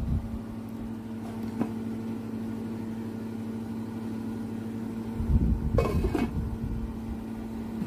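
A steady low hum with a constant tone, with a glass lid handled and set back onto a non-stick frying pan: a few thuds and then two clinks a little past halfway.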